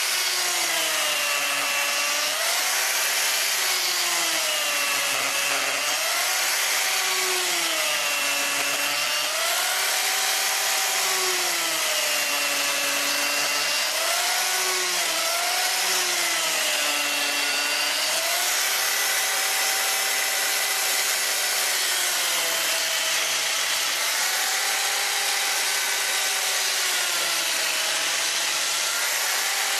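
Chainsaw cutting a series of closely spaced kerfs into a round log to hollow out a notch, its engine pitch dipping under load and rising again every second or two.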